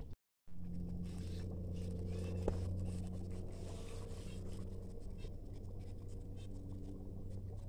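Small twig-and-matchstick campfire crackling faintly with scattered ticks, over a steady low hum, after a brief dropout at the very start.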